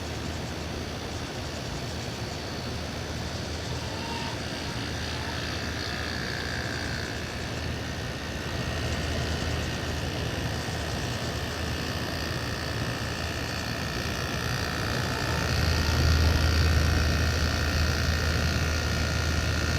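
Panasonic 7,800 BTU window air conditioner running on low cool: a steady low hum from its Matsushita compressor under the rush of the fan, a little bit angry-sounding. It gets louder for a few seconds near the end.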